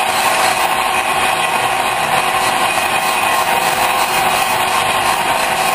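Large metal lathe running steadily, its high-speed steel tool taking a turning cut on a welded steel brake hat.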